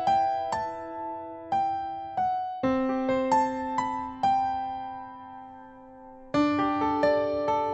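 Solo piano playing the slow introduction to a ballad: notes and chords struck and left to ring, with a long held chord before a fresh chord about six seconds in.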